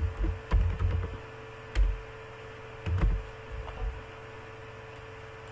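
Computer keyboard keystrokes: a few irregular taps with a dull thump, bunched in the first second and again near the middle, as a date-format expression is typed into a query field. A steady faint hum runs underneath.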